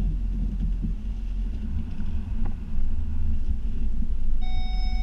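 Snow-plow truck's engine running in a steady low rumble as it works the driveway. Near the end a steady electronic beep starts and holds.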